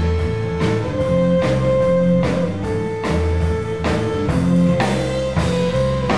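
Live folk band playing an instrumental passage. A violin holds long notes, changing about once a second, over a strummed acoustic guitar, bass and drums keeping a steady beat.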